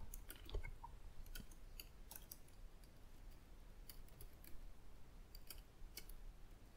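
Computer keyboard keystrokes: faint, irregular clicks, some in quick runs of two or three, as a line of code is typed.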